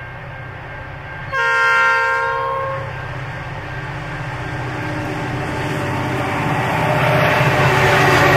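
An approaching freight train led by Pacific National diesel locomotive 8153 sounds one multi-tone horn blast of about a second and a half. After it, the rumble of the diesel locomotives (8153, XR559 and BL33) grows steadily louder as the lead engine draws up alongside near the end.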